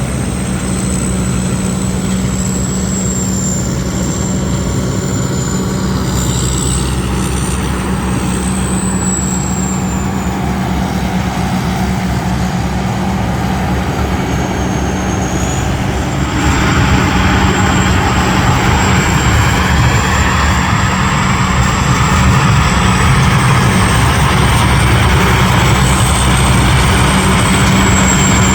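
Combine harvester running at work: a steady diesel engine hum with a high, slightly wavering whine over it. About halfway through, a louder rushing noise from the machinery joins in and stays.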